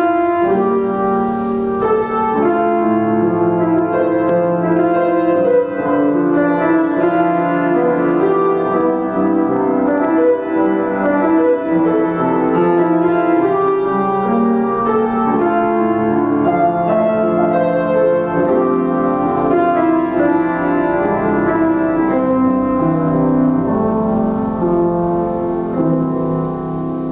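Slow instrumental keyboard music in held chords, growing quieter near the end.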